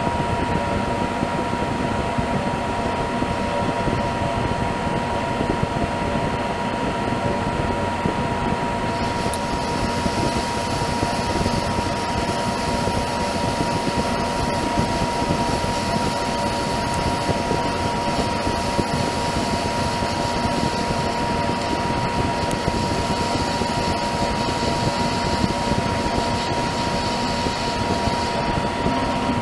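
Monarch 10EE metal lathe running steadily, turning a steel part, with a steady high whine. A brighter hiss joins about nine seconds in as the cut goes on.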